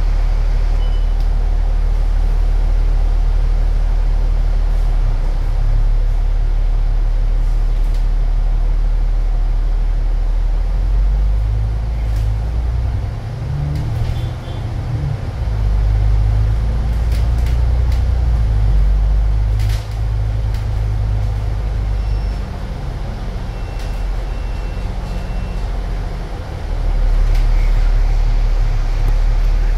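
Ride noise on the upper deck of an Alexander Dennis Enviro500 double-decker bus under way: a deep engine and drivetrain drone that rises and falls in pitch, with scattered clicks and rattles. Three short high beeps sound about three-quarters of the way through.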